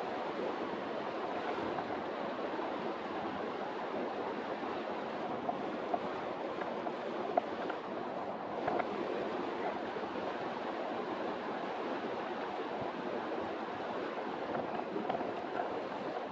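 River water rushing steadily over a mountain-stream riffle, with a couple of brief sharp ticks.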